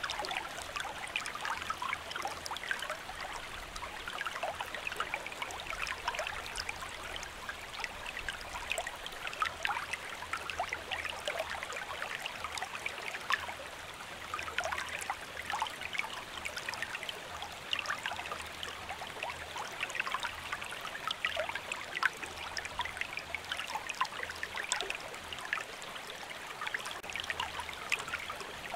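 Recorded forest stream: water babbling and trickling steadily, with many small gurgles and splashes.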